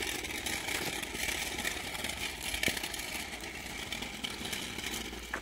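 Small hard wheels of a kick scooter and a pushchair rolling over rough asphalt: a steady rough rolling noise with scattered clicks.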